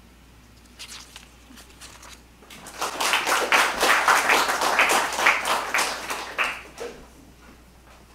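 Audience applauding: a few scattered claps about a second in, building to full clapping about two and a half seconds in, then dying away about a second before the end.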